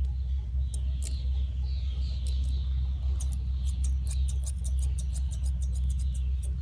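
Thinning shears snipping through a Newfoundland dog's long foot hair: a few crisp snips, then a quick run of several a second in the second half. A steady low rumble runs underneath.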